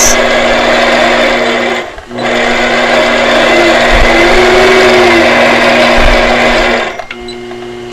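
Longarm quilting machine stitching at a steady speed, with a brief pause about two seconds in. Near the end the stitching stops, leaving a quieter hum.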